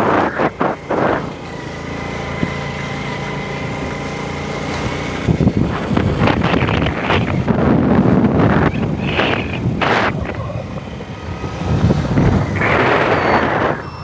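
Small motorcycle engine running steadily while being ridden, with gusts of wind noise rushing over the microphone.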